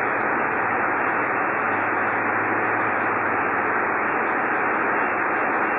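Steady static hiss from a Yaesu FT-1000MP Mark V shortwave transceiver on 3.950 MHz lower sideband, the 75-meter band's noise heard while no station is transmitting. The hiss is even and holds one level, with no highs in it.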